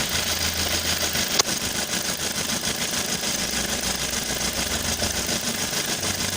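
Ford Focus 2's 2.0 Duratec HE four-cylinder engine idling, with one sharp click about a second and a half in. The owner traces its irregular knock, which shows on a cold engine and fades as it warms, to the accessory-belt tensioner pulley rocking on the tensioner body.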